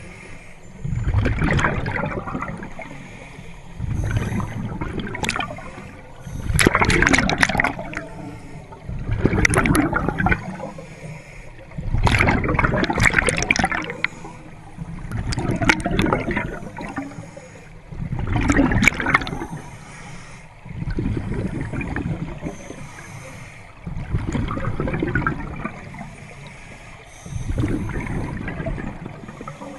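Scuba regulator breathing recorded underwater: bursts of exhaled bubbles gurgling in a steady rhythm, about one every three seconds, with quieter water noise between.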